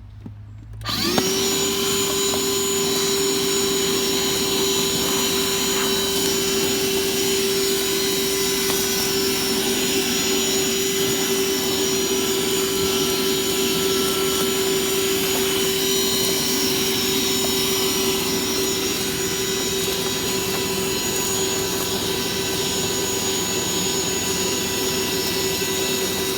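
Electric shop vacuum switched on about a second in and running steadily with a high whine, clearing heavy lint and cobweb buildup off a clogged condenser coil.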